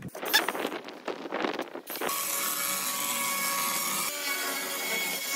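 Power tool working wood: about two seconds of uneven scraping, then a steady run of cutting noise with a faint constant whine.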